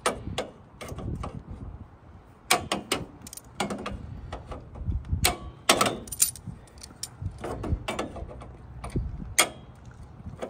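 Hand tools working on a car's fasteners: a run of irregular metallic clicks, clinks and knocks, spaced unevenly.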